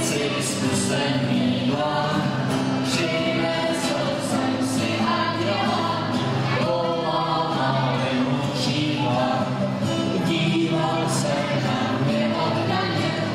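A mixed choir of adults and children singing a song together, accompanied by a strummed acoustic guitar.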